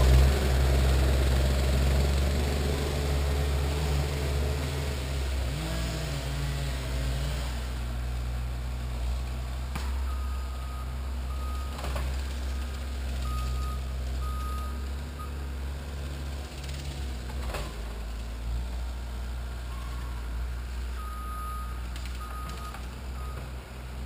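Diesel engine of a Cat compact track loader running and fading as the machine moves away. From about ten seconds in, its reversing alarm beeps in short spells.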